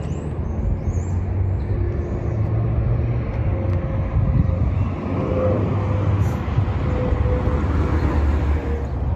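A car engine running close by, a steady low hum that grows louder through the middle and drops away near the end.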